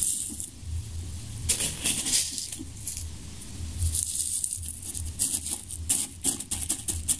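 Granular burst charge for a 3-inch firework shell poured from a paper hemisphere into a tissue-lined shell half packed with stars. The grains pour in several short hissing runs, with small clicks and paper rustling.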